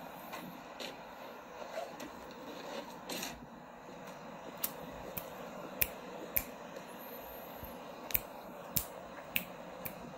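Two runs of four sharp clicks, about half a second apart, starting a little after halfway, over a steady background hiss.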